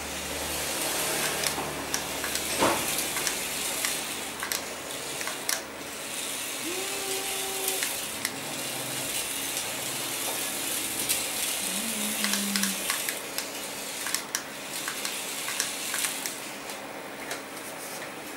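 Tiny electric drive motor and gears of a Coke-can mini RC car whirring in spurts as it runs across a tiled floor, with scattered clicks.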